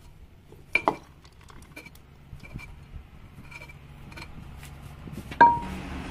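A knife and dishes clinking as a lime is cut in half and the pieces are handled. Light ringing taps and clinks, with two loud ringing clinks, one just under a second in and one about five and a half seconds in.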